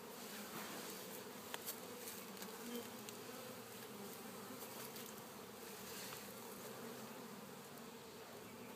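Honey bees from an opened hive buzzing in a steady, droning hum, with a couple of faint clicks.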